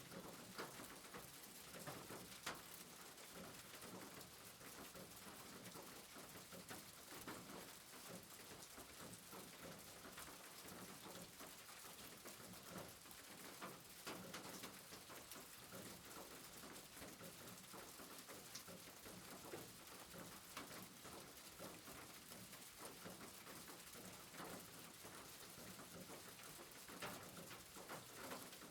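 Faint, steady rain pattering, with scattered drops ticking.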